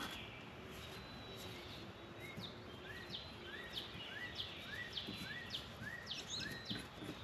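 A bird singing faintly, repeating a quick two-part phrase, a short rising note then a higher falling note, just under twice a second for several seconds, starting about two seconds in. Steady outdoor background noise lies beneath it.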